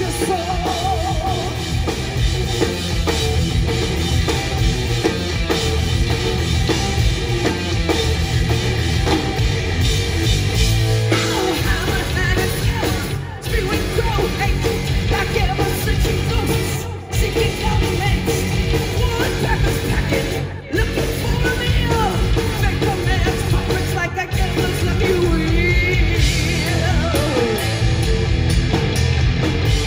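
Live metal band playing at full volume, with shouted singing over distorted guitars and drums. The sound drops out for an instant a few times, as the band stops together on a hit.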